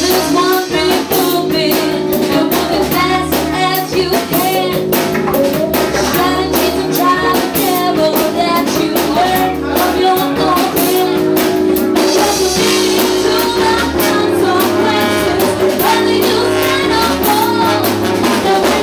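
Live funk band playing: singing over drum kit and electric guitar, with a steady driving beat.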